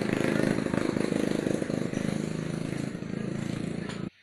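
Small single-cylinder underbone motorbike engine running at a steady idle, cutting off abruptly near the end.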